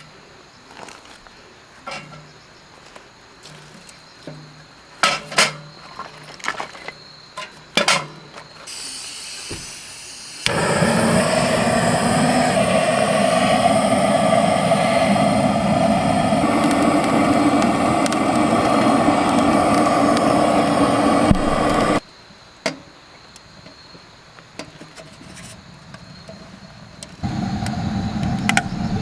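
A few handling clicks and knocks, then a loud steady rushing hiss from a gas torch lighting the wood stove, switched on suddenly about ten seconds in and cut off suddenly about twelve seconds later; a similar steady rush starts again near the end.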